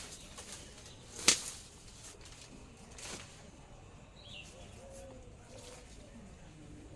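A few sharp snaps, the loudest about a second in, typical of sweet corn ears being snapped off the stalk by hand. Faint bird calls behind them.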